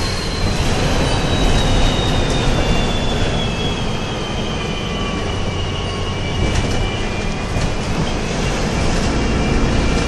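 Mercedes-Benz O-500U city bus's diesel engine and drivetrain heard from inside the passenger cabin: a steady low rumble with a thin high whine that slowly falls in pitch over the first seven seconds. The low rumble grows a little stronger near the end.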